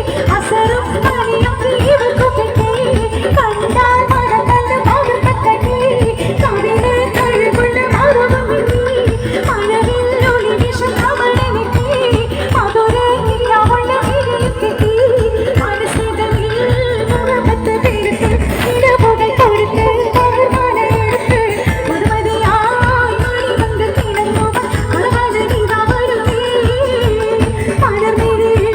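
Loud live stage-show music through a PA sound system: a singer with band accompaniment over a steady beat, in Indian film-song style.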